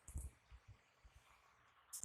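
Faint, soft low thuds from hands working during a massage. The loudest comes just after the start with a brief rustle, followed by two weaker ones.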